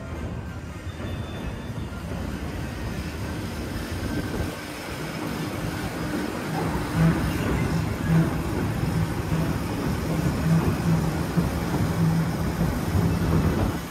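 DisneySea Electric Railway's two-car electric train running over the elevated steel track. The rumble grows louder from about five seconds in, with a steady low hum and a couple of louder clunks.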